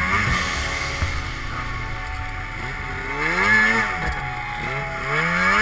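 2012 Arctic Cat M800's two-stroke twin engine running as the snowmobile ploughs through deep powder, revved up and back down about halfway through and revved up again near the end.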